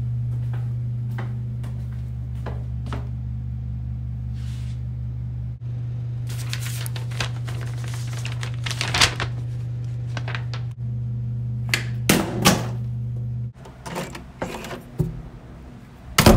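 A steady low hum with scattered clicks and knocks, like objects being handled. The hum stops about three-quarters of the way through, and a louder knock comes at the very end.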